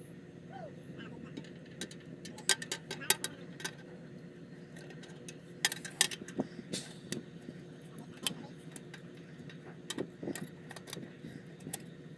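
Irregular sharp clicks and light taps of small hard parts and tools being handled, some in quick clusters, over a steady low hum.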